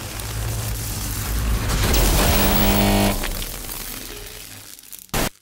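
Logo sting sound design: a swelling whoosh over a low rumble, peaking about two seconds in with a bright sustained chord that cuts off about a second later, then fading. A short sharp hit comes near the end.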